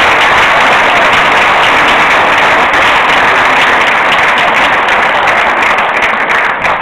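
Audience applauding: a dense, even wash of clapping that starts to thin out near the end.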